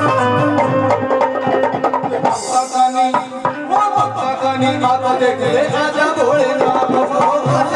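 Live Haryanvi folk music through a PA: a hand drum keeps a steady beat under a melody instrument. The drum drops out briefly a little after two seconds, then a man's voice sings over it from about four seconds in.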